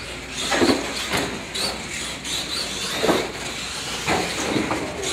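Radio-controlled monster trucks running around the track: a steady motor and tyre noise with a faint high whine, broken by about four sudden louder bursts.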